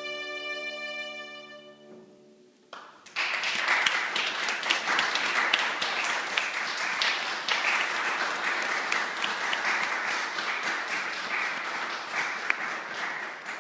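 A solo violin's final held note dies away, and after a brief hush the audience claps for about ten seconds.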